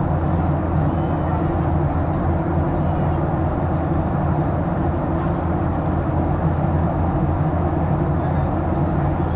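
Steady drone of an airplane in flight heard from inside the cabin: a constant low rumble of engines and rushing air, unchanging throughout.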